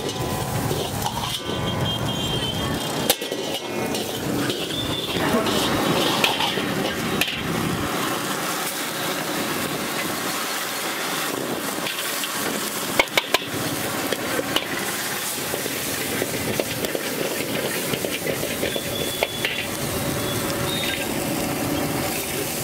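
Sliced onions sizzling in a hot wok over a gas flame while a steel ladle stirs them, scraping against the wok. A few sharp clanks of the ladle on the wok come about halfway through.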